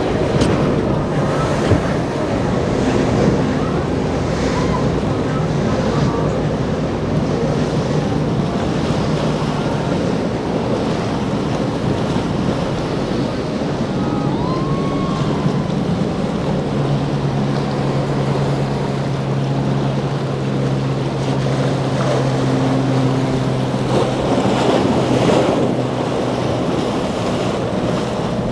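Azimut 70 motor yacht's twin diesel engines running under way, a steady low drone that grows stronger about halfway through, over the rush of its wake and breaking waves, with wind buffeting the microphone.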